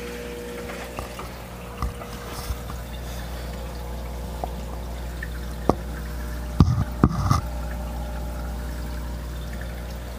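Aquarium water bubbling and trickling from the air-line bubble streams, over a steady hum. A few sharp taps, then a louder cluster of knocks about two-thirds of the way through.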